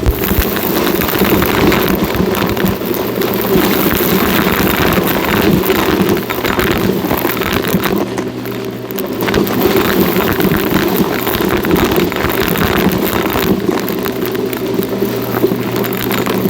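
Shark NV351 upright vacuum cleaner running steadily, with a dense crackling rattle of debris being sucked up; the sound drops briefly about eight seconds in.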